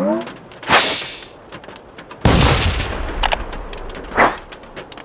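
Transition sound effects: a whoosh about a second in, a louder deep boom with a falling whoosh a little after two seconds, a short snap, and another whoosh near the end, over a steady light crackle.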